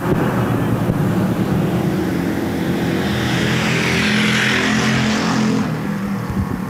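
Dirt-track stock car engines running hard at full throttle as the cars race by, cutting in suddenly. The sound swells about three to five seconds in and eases near the end.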